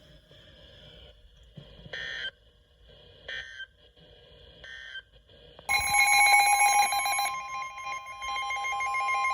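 Emergency alert signalling: three short digital data bursts about a second apart, typical of an EAS end-of-message code. About six seconds in, a loud alert tone starts and holds, a rapidly pulsing warble over a steady tone near 1 kHz, announcing the next warning.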